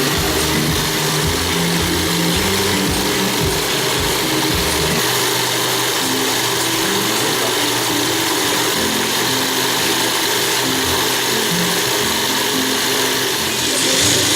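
Sewing machine running steadily in a long continuous stitching run, its mechanism giving a fast, even mechanical clatter.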